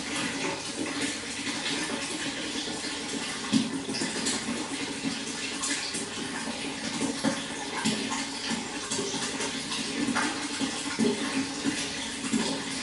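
Running water flowing steadily with a continuous rush and many small splashes and gurgles.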